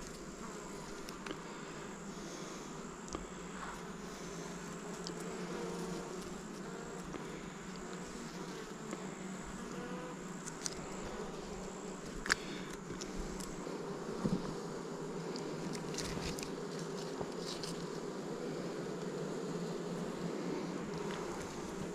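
Honey bees buzzing around an open hive during a frame inspection, a steady hum with a few light clicks and knocks of frames and tools.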